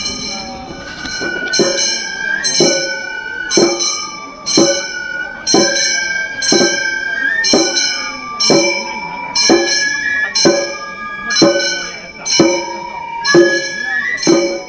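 Gion bayashi festival music: small hand-held brass gongs (kane) are struck in a steady beat about once a second, ringing with bright overtones. A bamboo transverse flute (fue) plays a high held melody that steps between notes.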